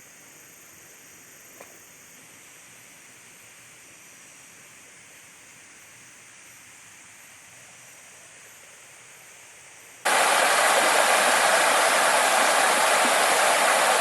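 A faint steady hiss with a few thin high steady tones, then about ten seconds in an abrupt switch to the loud, even rush of river rapids.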